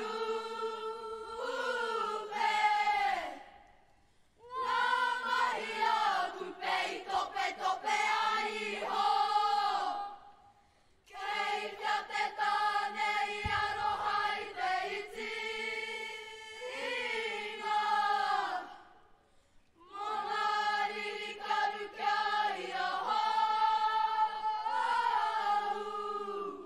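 A kapa haka group of young voices chanting a mōteatea, a traditional Māori chant, in unison. It comes in long held phrases with short breath pauses about four seconds in, near eleven seconds and near twenty seconds.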